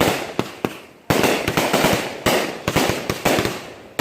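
Aerial fireworks going off in a rapid barrage: sharp bangs one after another with crackling in between, and a big dense burst about a second in.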